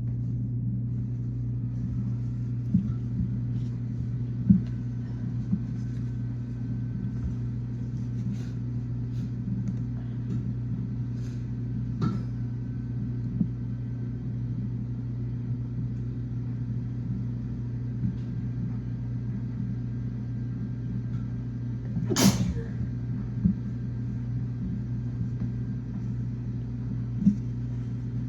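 Steady low hum of a running kitchen appliance, with scattered light clicks and knocks and one loud sharp burst about 22 seconds in.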